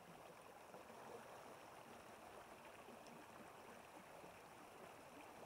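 Near silence: a faint, steady rush of shallow creek water.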